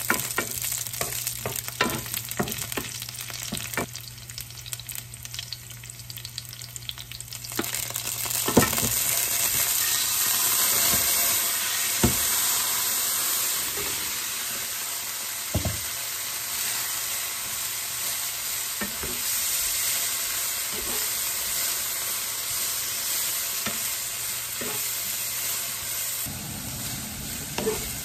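Aromatics sizzling in hot oil in a nonstick frying pan, with a wooden spatula tapping and scraping the pan. About eight seconds in the vegetable florets go in and the sizzle turns much louder and steady, with occasional knocks of spatula and lid as they are stir-fried.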